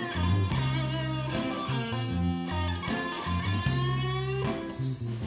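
Background music led by guitar, with notes bending in pitch, over a moving bass line.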